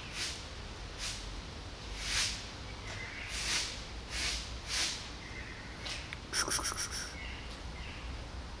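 Cat eating from a food dish, with a string of short noisy chewing bursts. About six seconds in, a bird gives a brief rapid chirping call.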